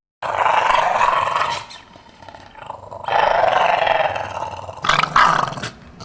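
English bulldog growling with a toy football clamped in its mouth. It comes as two rough stretches of about a second and a half each, then a couple of short bursts near the end.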